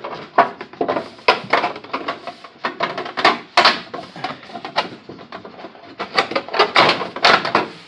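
Busy handling noise: a quick, uneven run of clattering knocks and rattles as a landing gear fairing is worked and set into place.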